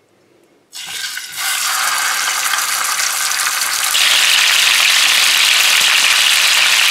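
Rolled beef slices sizzling as they fry in hot oil in a nonstick frying pan: the sizzle starts suddenly under a second in and becomes louder and brighter about four seconds in.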